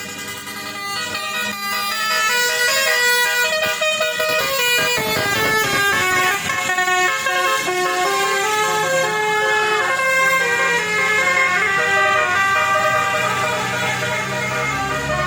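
Basuri telolet horn, a multi-trumpet musical vehicle horn, playing a melody: several horn tones sound together and step from note to note throughout.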